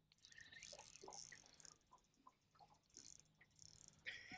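Near silence: only faint, scattered small ticks and rustles.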